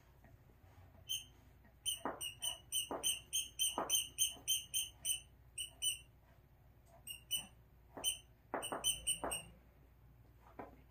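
A dog's squeaky toy being chewed: short, high squeaks in quick runs of about four a second, with a few pauses, and duller rustling noises in between.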